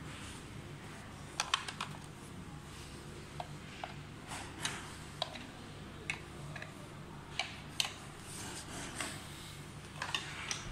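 Irregular sharp clicks and taps of a plastic window-cleaning robot's casing being handled, turned over and set down on a wooden table, with the light click of a small screwdriver against it.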